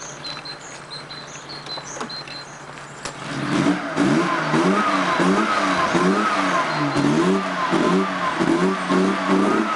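Car engine, loud from about three seconds in, its pitch rising and falling over and over as it is revved. Before that, birds chirp over a low steady hum.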